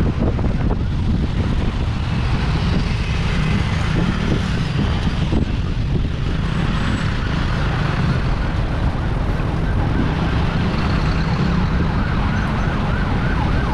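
Wind buffeting an action camera's microphone on a moving fixed-gear bicycle, a heavy steady rumble, with road and traffic noise underneath.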